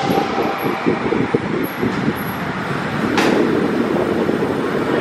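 Loud, continuous vehicle running noise, rough and dense, with a steady tone fading out in the first second and a single sharp click about three seconds in.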